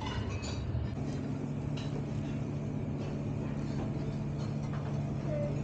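A steady low machine hum, from about a second in, with a few faint light taps and clinks of metal tongs and utensils.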